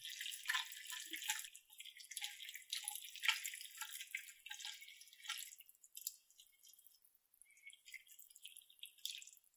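Silicone spatula stirring and tossing spaghetti through a creamy egg-yolk and cheese sauce in a stainless steel pan, making wet, sticky crackling and small pops. It is busiest for the first few seconds and thins out toward the end.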